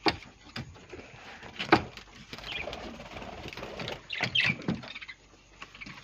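Small parrots chirping briefly a few times and fluttering in a wire aviary, with scattered sharp clicks and knocks.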